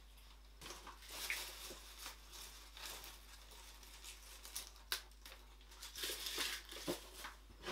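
Dry gum leaves crinkling and rustling as they are stripped from their twigs by hand and dropped into plastic enclosures. The rustle is irregular and light, with a few sharp crackles.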